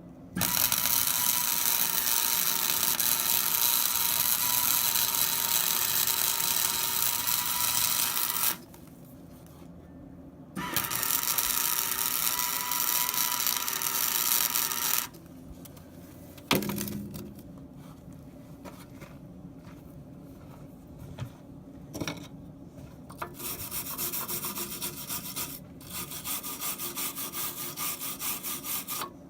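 Welding arc from a Hobart welder laying beads on steel chain hooks: a steady crackling hiss in two long runs, about eight and four seconds, with pauses between, then shorter, quieter bursts near the end.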